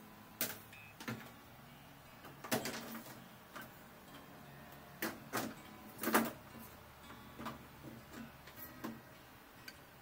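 A rat guard being fitted to the underside of a washing machine's base by hand: scattered irregular clicks and knocks, the loudest about six seconds in.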